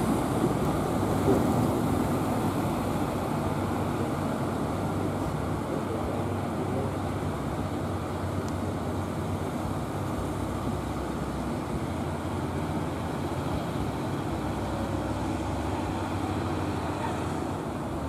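A wooden fishing boat's engine running steadily as the boat comes in through the surf, over the continuous wash of breaking waves.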